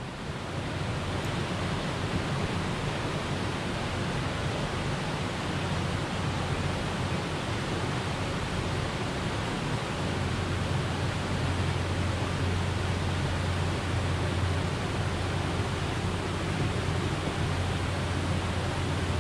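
Steady rushing noise of wind on the camera microphone, with a low rumble that gets a little stronger about halfway through.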